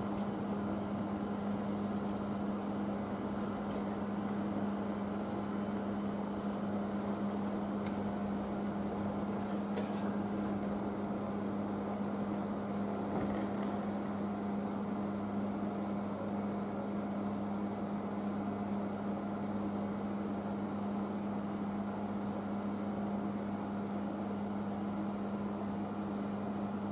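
Electric locomotive humming steadily at a station platform, its fans and electrics giving an even hum with a constant low tone.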